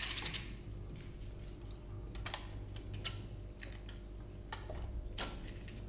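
Steel tape measure being stretched out and handled: a scatter of light clicks and rattles from the metal blade, over a steady low hum.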